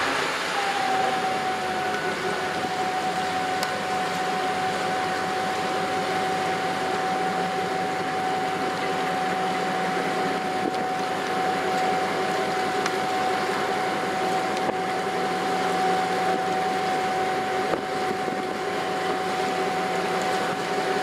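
Waterjet-propelled patrol boat manoeuvring alongside a quay: a steady rush of churning jet wash and engine noise, with a steady high whine held over it.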